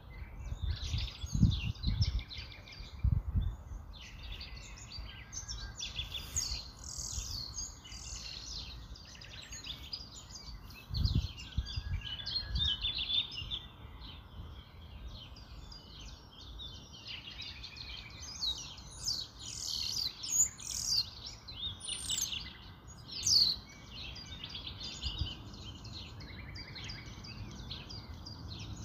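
Small birds chirping over and over, with a few dull knocks of a utensil against the pan near the start and again about eleven seconds in.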